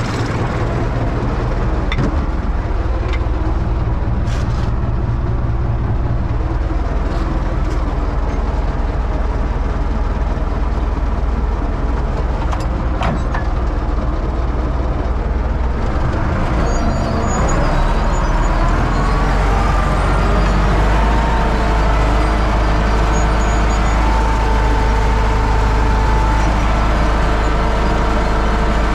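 Universal U650 tractor's four-cylinder diesel engine running steadily while pulling a seed drill during sowing. About two-thirds of the way in the drone gets heavier and a whine appears, rises in pitch, then holds steady.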